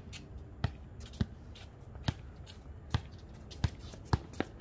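A basketball bouncing on a hard court: a series of sharp thuds at uneven intervals, about every half second to a second.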